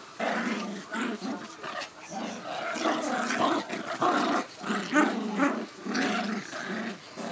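Small dogs growling as they tug and wrestle over a plush toy in play-fighting, a near-unbroken run of short growls coming several a second.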